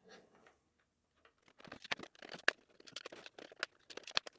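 Small Phillips screwdriver backing screws out of a plastic gel-blaster drum magazine: faint, irregular clicks and creaks of the tip and screws turning in the plastic, starting about a second and a half in.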